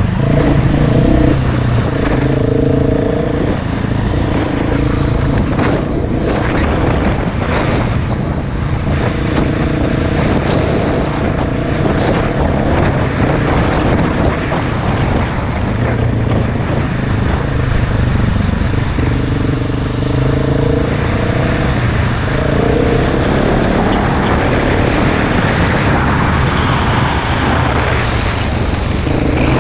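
KTM enduro dirt bike engine running hard on an uphill off-road climb, the revs rising and falling in stretches as the throttle is worked, over a steady rushing noise.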